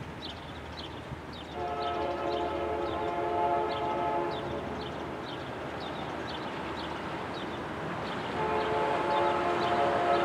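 Horn of an approaching CN freight locomotive (CN 5413), sounded as two long blasts: one from about a second and a half in to about five seconds, and another starting about eight seconds in.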